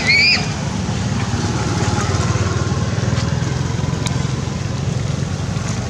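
A steady low drone like a small engine running. Right at the start there is a short, high, wavering squeal from the infant macaque.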